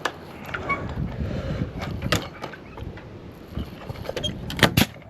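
Timber framing work: clatter and knocks of rafter timber being handled and set in place, with a sharp strike about two seconds in and two loud sharp strikes in quick succession near the end.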